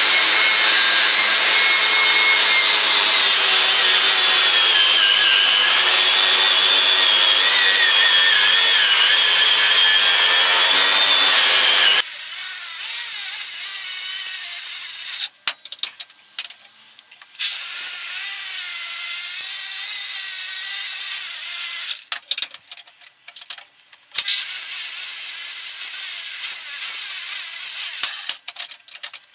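Angle grinder with a wire wheel brushing rust off a steel ball-peen hammer head: a steady high whine whose pitch wavers as the wheel is pressed on and eased off. About twelve seconds in the sound changes abruptly and then comes in several bursts separated by short gaps.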